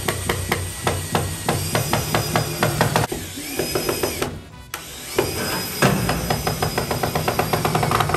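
Cordless drill driving screws upward into the underside of a metal-roofed canopy. The motor runs with rapid, evenly spaced clicking in two runs of about three seconds each, with a brief pause between them.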